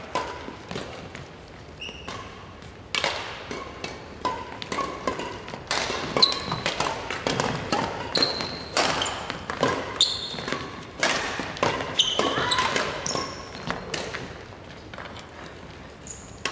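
Badminton rally: rackets hitting the shuttlecock with sharp cracks and shoes squeaking on the wooden court floor, thickest from about three seconds in until near the end.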